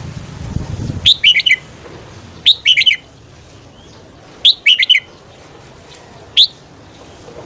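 Red-whiskered bulbul singing four short, loud whistled phrases about two seconds apart, each a quick run of clear notes; the last is a single note.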